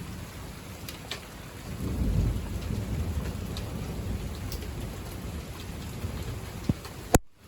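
Steady rain falling, with a low rumble of thunder that builds about two seconds in and slowly eases off. A sharp click near the end, after which the sound drops.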